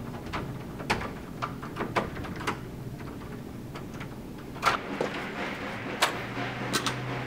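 Footsteps on a hard floor, about two a second. Then a door is opened, with a few sharp clicks and knocks of its latch and frame. A low steady hum comes in near the end.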